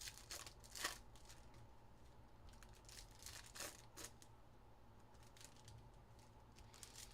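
Faint, scattered crinkles and clicks of Panini Donruss football card packs and cards being handled, the loudest about a second in.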